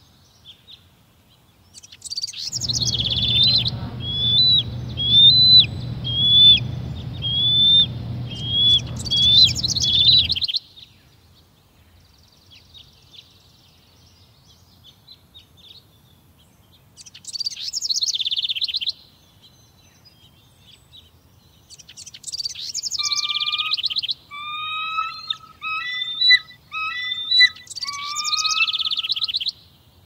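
Bald eagle calling: runs of short, high-pitched whistled chirps, each note hooking downward. First comes a run of about ten notes over a low background rush, then a brief burst, then a denser chattering run with lower notes mixed in near the end.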